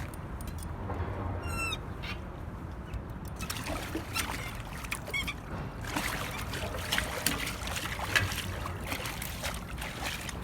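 River water splashing and trickling, with a short bird call about a second and a half in and another, fainter, about five seconds in.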